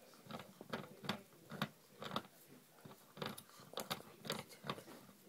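Puppy gnawing on a rattan furniture leg: the cane cracks and crunches under its teeth in irregular sharp snaps, sometimes several in quick succession.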